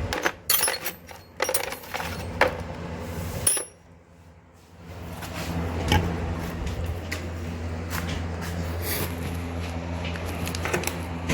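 Metal hand tools clinking and clattering, a run of sharp clinks over the first few seconds, then a steady low hum with the odd faint tick.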